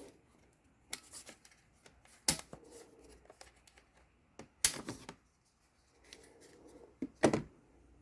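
Plastic clicks and knocks from a Lenovo ThinkPad P52 laptop being flipped over and handled to take its battery out. There are a handful of sharp clicks, with the loudest near the middle and a double click near the end, and faint handling noise between them.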